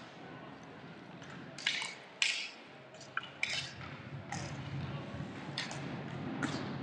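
Inline hockey sticks clacking against the puck and the rink floor: about seven sharp, separate knocks over a low background murmur from the rink.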